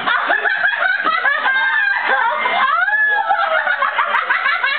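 Several people laughing loudly at once, high-pitched cackling laughs overlapping, with a long squeal that rises and falls about three seconds in.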